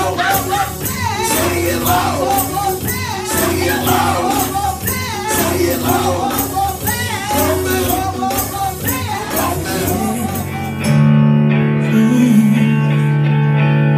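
Church worship music: a singer over a live band with tambourine and steady percussion, then about eleven seconds in the singing and percussion stop and the band holds one sustained chord.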